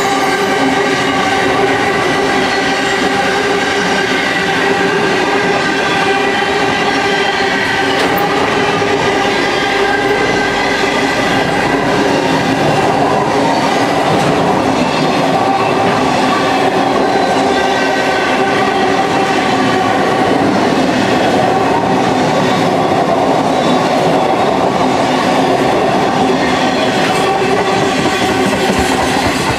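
Container wagons of a long intermodal freight train rolling past at speed: a steady, loud wheel-on-rail rumble and clatter, with several high steady tones sounding over it.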